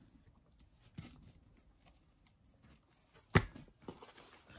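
Light handling sounds as a plush toy is moved about on a wooden floor: a small click about a second in and one sharp knock a little over three seconds in, followed by a few fainter taps.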